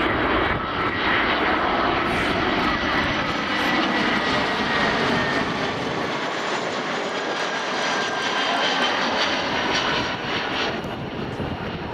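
An Airbus A320 coming in to land and passing by, its twin jet engines making a loud, steady noise with whining tones that fall slightly in pitch as it passes. The noise eases off near the end.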